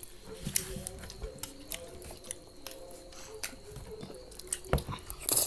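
Children eating with their hands at a table: scattered light clicks and soft knocks of hands, plates and bowls, with chewing, and a louder knock and rustle near the end.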